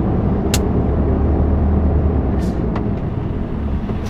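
Lorry cab interior noise on the move: a steady low drone of the engine and tyres on a wet motorway. A short sharp click sounds about half a second in.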